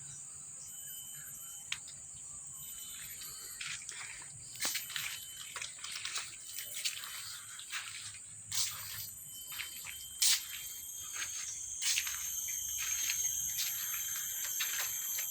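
Outdoor insect chorus: a steady, high-pitched trilling drone throughout, with many short, sharp clicks and chirps scattered over it.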